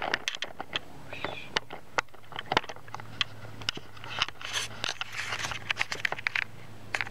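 Camera handling noise: a scattered string of clicks, scrapes and rustles as the camera is moved about. A steady low hum comes in about three seconds in.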